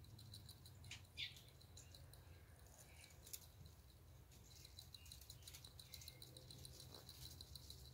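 Near silence: a faint low hum of room tone, with faint rapid high ticking and a few brief, faint high chirps.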